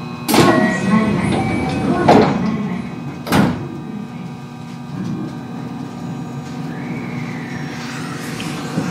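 Sliding passenger doors of a JR West 223 series electric train closing, with three sharp thuds over the car's steady hum. Near the end a faint gliding whine comes in from the Hitachi IGBT-VVVF inverter as the train starts to pull away.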